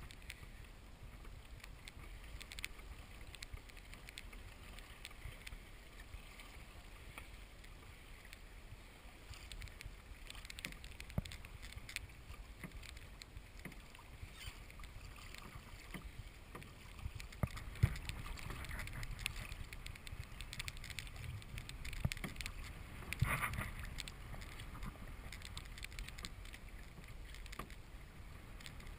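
Hobie PA14 kayak moving through water: water splashing and lapping against the hull, with scattered small knocks and clicks that are loudest about 23 seconds in.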